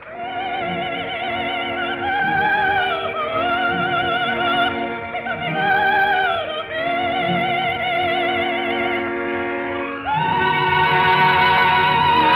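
Operatic singing with a wide vibrato over a sustained orchestral accompaniment, heard as an old, narrow-band film-soundtrack recording; about ten seconds in the voice moves to a higher held note and the accompaniment fills out.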